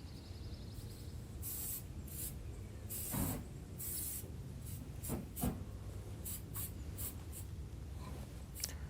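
Metal scraping and scattered clinks and knocks from working a Santa Maria charcoal grill, as the cooking rack is raised and a griddle is set on the coals, with a few short scrapes among the clicks.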